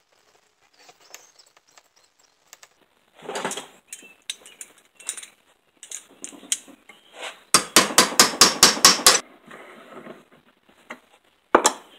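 Metal tools clinking and clattering against a small engine's friction drive clutch as it is worked loose, then a quick run of about ten sharp metal strikes, about six a second, midway through, and a single knock near the end.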